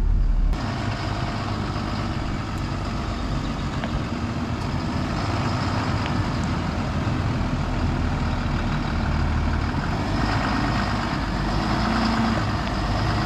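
Engine of a large Super C motorhome running as it creeps forward towing a Jeep, growing a little louder near the end as it comes closer.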